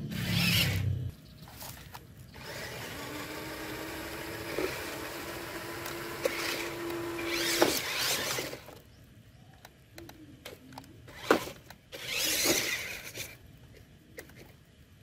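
Small electric drive motor and gearbox of a toy RC truck whirring in bursts as it drives and pulls through mud, with the longest run lasting several seconds, and a few sharp clicks.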